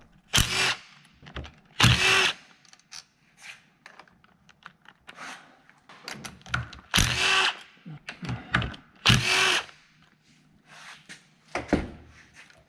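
A cordless drill/driver run in several short bursts of about half a second each, with clicks and knocks of the tool and parts in between: the handlebar clamp bolts coming out of a mini bike.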